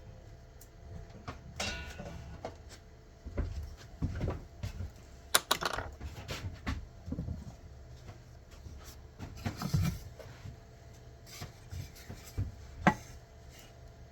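Scattered knocks, taps and clatter of wooden workpieces and tools being handled on a bench, with a sharp knock about five seconds in and another near the end.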